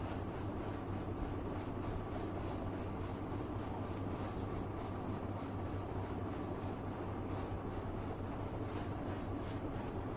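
Quick back-and-forth strokes rubbing over paper as paint is blended across the sheet, about three strokes a second, over a steady low hum.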